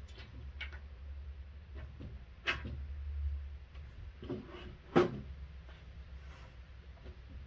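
Scattered small clicks and knocks of metal hardware and wooden crib parts being handled while bolting a crib's side rail to its headboard, with two louder knocks, the first about two and a half seconds in and the second about five seconds in. A low steady hum runs underneath.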